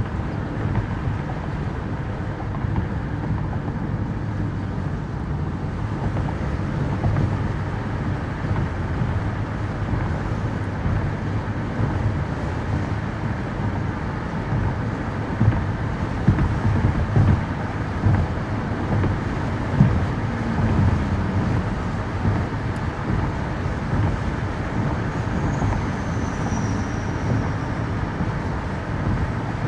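Car travelling at motorway speed: steady low road rumble with tyre and wind noise. A few short, louder thumps come around the middle.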